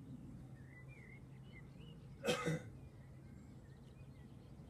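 A single short cough, two quick bursts close together, a little over two seconds in, over a low steady background hum.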